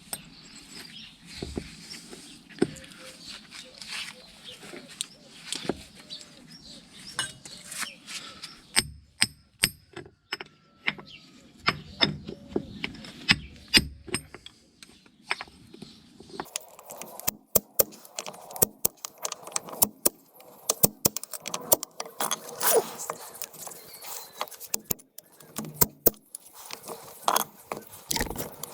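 Metal hand tools and steel hub parts clinking and knocking in sharp, irregular taps, coming thicker and louder past the halfway point.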